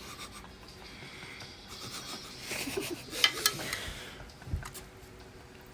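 A metal spoon scraping and rubbing inside a container while scooping out jelly cubes, with a few sharp clinks about three seconds in.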